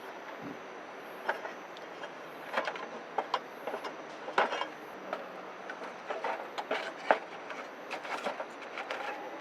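Wood fire crackling in a fire pit: irregular sharp pops and snaps over a steady hiss.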